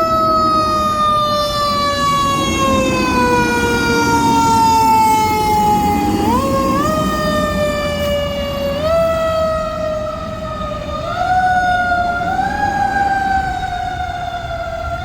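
Emergency-vehicle siren wailing. Its pitch slides slowly down for about six seconds, then climbs back up in a few quick steps.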